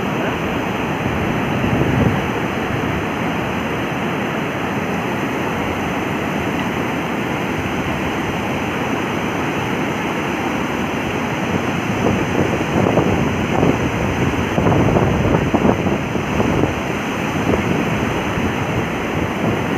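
Floodwater pouring through a dam's open sluice gates and churning in the river below: a steady, loud rush of turbulent water, with louder surges in the second half.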